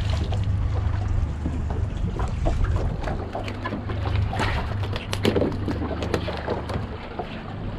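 Steady low rumble of an idling boat engine, with scattered knocks and rattles as a small fish is handled and unhooked on the deck.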